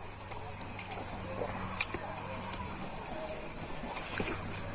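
Quiet eating sounds close to the microphone, with one sharp click about two seconds in, over a steady low hum.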